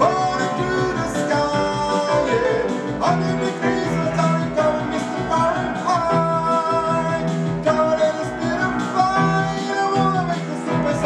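A man singing, accompanied on an upright piano playing steady repeated chords, his voice holding long notes over them.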